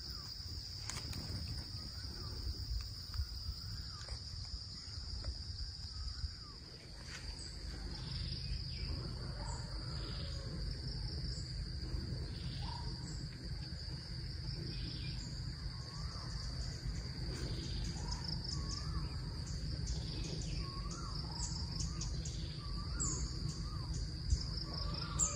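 Outdoor ambience: a steady high-pitched insect drone throughout, with short chirping bird calls scattered over it, more of them from about eight seconds in, over a low rumble.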